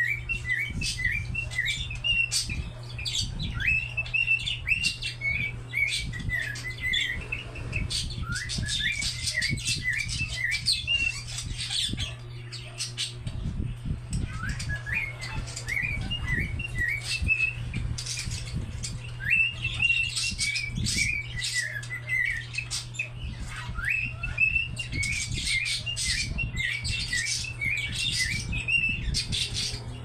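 Cockatiel singing: phrases of quick, short whistled notes that bend up and down, broken by brief pauses, over a steady low hum.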